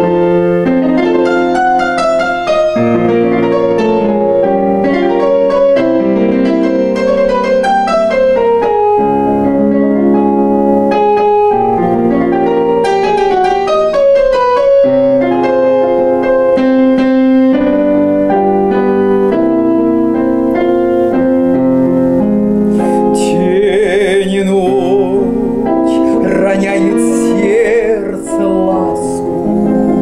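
A piano plays a slow introduction of held chords and melody; about two thirds of the way through, a woman starts singing over it with vibrato.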